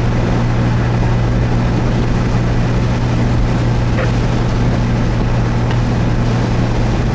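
Steady low drone and rushing noise inside a vehicle's cabin, unbroken throughout.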